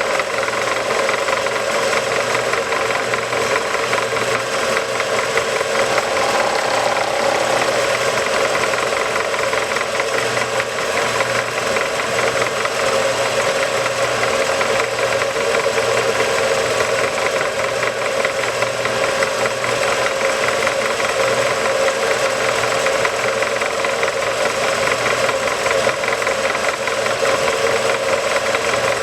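A shop machine or power tool running steadily and without a break, with a dense, fast rattle over a low hum.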